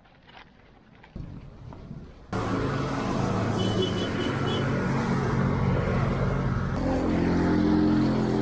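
A few faint clicks, then from about two seconds in a golf cart engine running steadily with wind rush over it, its pitch rising somewhat near the end.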